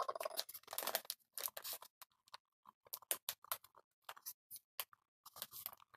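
A paper bag of cornstarch crinkling as it is tipped and squeezed, with the powder pouring into a plastic tub: a quiet scatter of short, irregular crackles.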